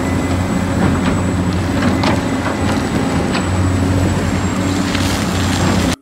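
Large Caterpillar hydraulic excavator's diesel engine running steadily under digging load, with a few short knocks of bucket and rock, the sharpest about two seconds in and again a little after three seconds.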